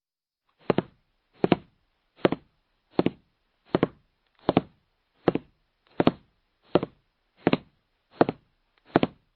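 Footsteps: slow, even steps at a walking pace, about one every three-quarters of a second, beginning just under a second in.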